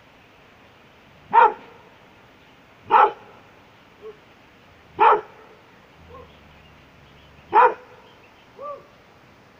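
A dog barking: four loud single barks spaced about two seconds apart, with a few much fainter short calls in between.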